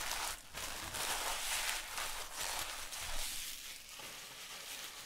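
Foil trading-card pack wrapper crinkling and rustling as it is handled, dense at first and fading in the second half.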